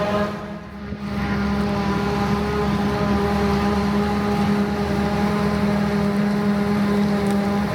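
Heavy diesel farm machinery running steadily under load, a loud hum with a high whine over it. The sound dips briefly about half a second in, then carries on unchanged.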